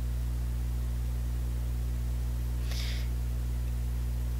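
Steady low hum with a constant hiss beneath a performer's pause. About three seconds in comes a short, sharp intake of breath.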